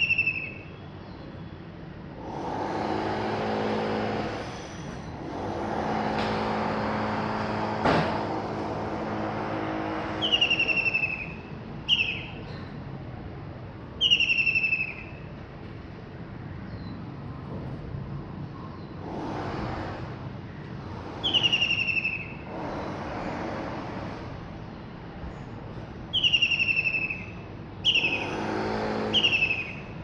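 White-throated kingfisher calling from a perch: a loud, short, descending trilled whinny, given about eight times at irregular intervals. Road traffic passes several times in between.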